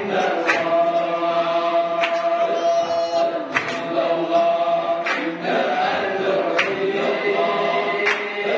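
A group of men chanting Sufi dhikr together in the Samman tarekat style, holding long notes in unison. Sharp accents cut through about every second and a half.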